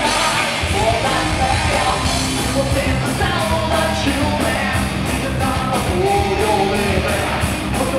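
A rock band playing live and loud: drums with a steady cymbal beat about four times a second, guitars and shouted vocals.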